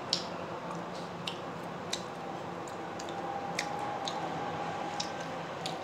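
A person chewing a steamed momo dumpling: irregular sharp, wet mouth clicks and smacks, about two a second, over a low steady hum.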